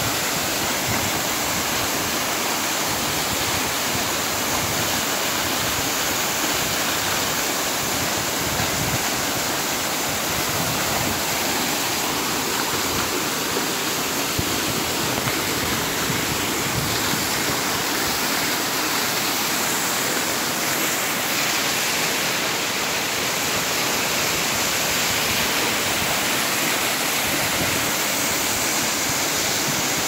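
Waterfall pouring steadily over a rock face onto boulders and into a shallow pool.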